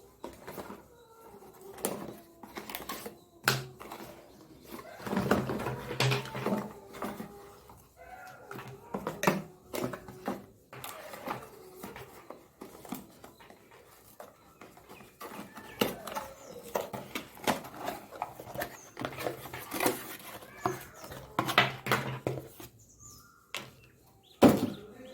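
Headphone packaging being handled during unboxing: irregular clicks, knocks and rustles of the box and wrapping, with a few faint squeaky tones.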